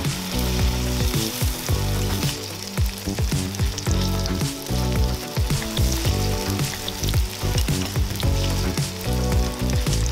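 Okonomiyaki batter of cabbage and egg sizzling in hot oil in a frying pan as it is spooned in and shaped with a spoon. Background music with a steady beat plays over it.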